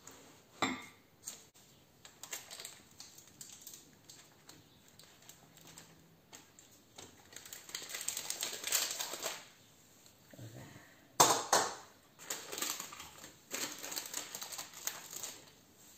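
Parchment paper crinkling and rustling in bursts as it is peeled away from the side of a chilled cheesecake and its springform pan, with one sharp knock about eleven seconds in.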